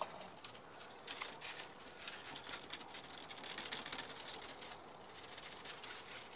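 Faint crackling and hiss of a burning sheet of cement-bag paper, held as a flame against the end of a PVC pipe to soften it, with scattered small snaps.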